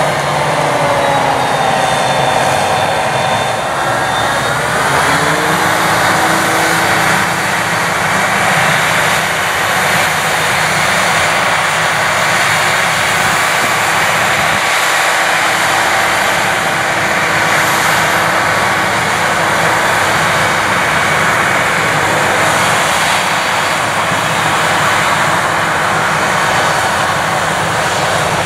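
Claas Jaguar 980 forage harvester chopping maize, its V12 diesel and chopper drum running loud and steady under load. A whine falls in pitch over the first few seconds, then holds steady.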